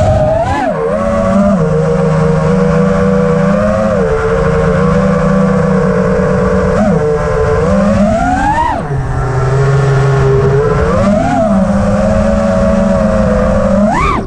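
FPV racing quadcopter's brushless motors and propellers whining, the pitch swinging up and down with the throttle. It climbs steeply a little past halfway through and again at the very end.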